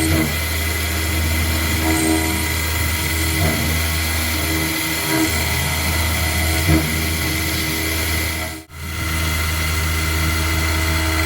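KX-3 CNC mill running while it machines a cast iron flywheel: a steady hum with a few steady whirring tones and faint clicks. The sound cuts out almost completely for a moment about nine seconds in, then resumes.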